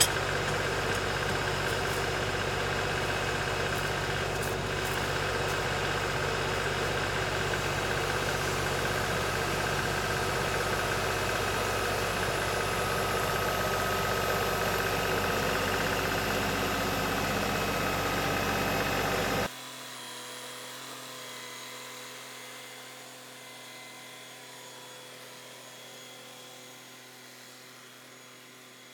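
LS XR3135 compact tractor's diesel engine running steadily. About two-thirds of the way in it cuts off suddenly, leaving a faint steady hum that slowly fades.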